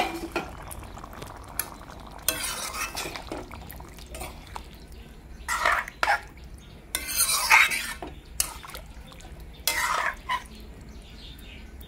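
A spoon stirring a watery pork curry in a metal wok: about four short scraping strokes against the pan, a second or two apart, with a few light clicks of the spoon on the metal.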